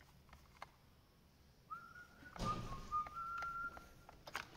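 A person whistling a few short, stepping notes, with a rush of low noise coming in about halfway through.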